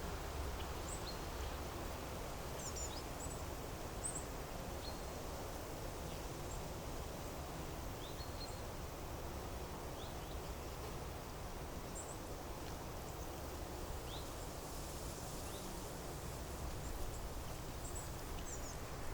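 Outdoor nature ambience: a steady low rush of background noise, with faint, brief high bird chirps scattered every second or so.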